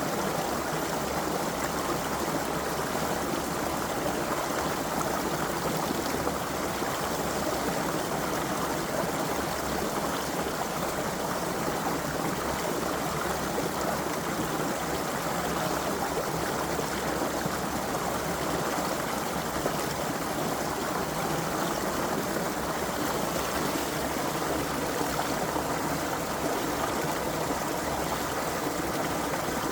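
Creek water running steadily over rocks, an even rushing and trickling flow with no breaks.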